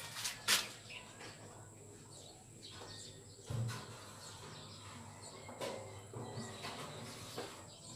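Quiet outdoor background with scattered light clicks and knocks, one duller thump about three and a half seconds in, and a faint steady high-pitched whine throughout.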